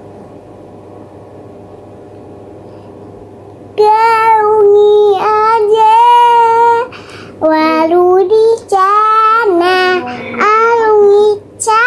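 A young girl singing loudly in long held notes, in several phrases with short breaks. The first four seconds or so hold only a low steady hum before she starts.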